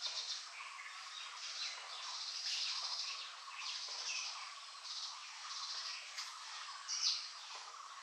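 Several birds chirping and calling at once, a busy run of short high chirps overlapping one another, with one louder sharp call about seven seconds in.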